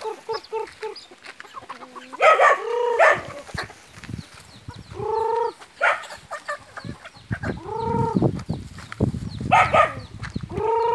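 Native chickens clucking and calling: a quick run of short clucks at the start, then several longer drawn-out calls and sharp squawks.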